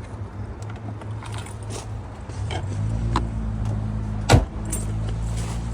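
2006 Cadillac DTS's Northstar V8 idling steadily, a little louder from about three seconds in, with one sharp knock a little after four seconds.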